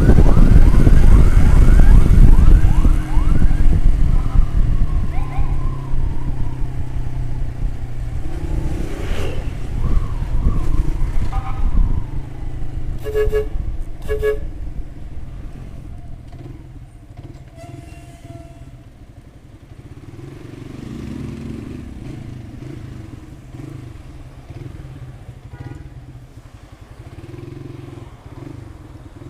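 Motorcycle engine running on the road amid traffic, loud and rising in pitch in the first few seconds, then growing quieter through the second half. Two short horn beeps sound about halfway through.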